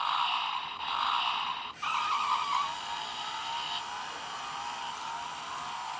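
Electronic motorcycle sound effect from a toy Kawasaki dirt bike, played through its small speaker: a loud engine noise that breaks off briefly about two seconds in, then carries on steadier with slight rising and falling pitch.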